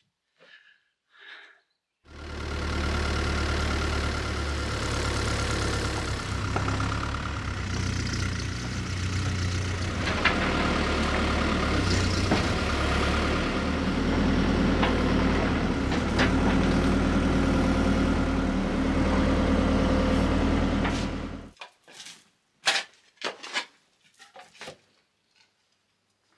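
Mini excavator's diesel engine running steadily with a deep hum while its bucket digs into the soil, with a few sharp metallic knocks; it cuts off suddenly near the end. A few short scrapes and knocks of a hand shovel in the dirt follow.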